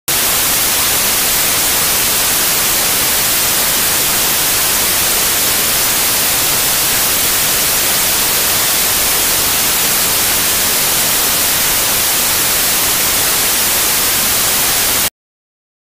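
Loud, steady static hiss with no pattern, like white noise, strongest in the high end. It cuts off abruptly about fifteen seconds in.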